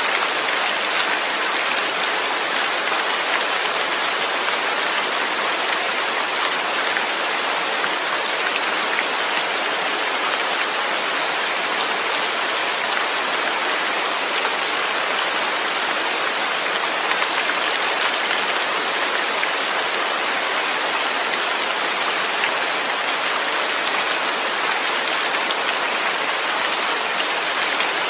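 Steady, even rain falling, a dense continuous hiss of drops with no pauses or changes.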